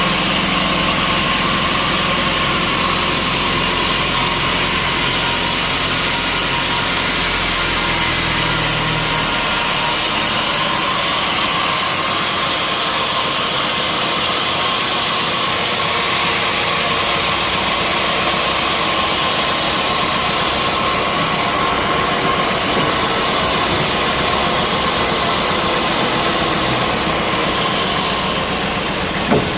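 Sawmill machinery running steadily, a dense mechanical noise with a low rumble that drops away about nine seconds in, and a short knock near the end.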